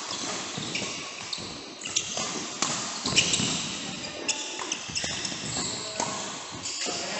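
Badminton play on an indoor court: a string of sharp hits and footfalls, with short high squeaks of shoes on the court floor scattered through.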